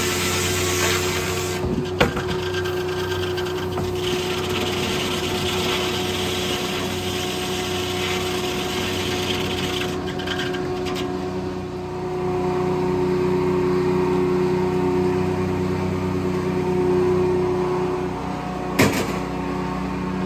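Engine running steadily at the Corley circle sawmill, with two sharp knocks, one about two seconds in and one near the end.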